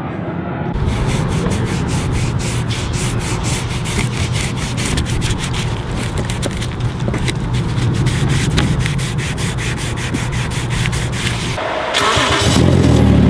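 Microfiber towel rubbing trim restorer into the plastic cowl trim below a windshield, in quick repeated wiping strokes. Near the end this gives way to a car engine idling.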